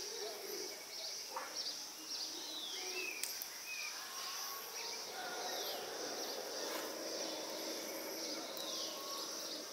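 Rural outdoor ambience: birds give short descending whistled calls every few seconds over a steady high-pitched insect drone.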